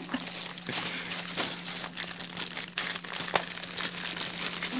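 Small plastic bags of keycaps crinkling as they are handled and opened, with scattered sharp crackles, over a steady low hum.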